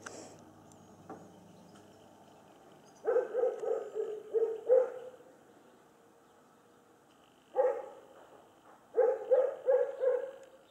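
A dog barking in short runs: about half a dozen quick barks, a single bark, then four more.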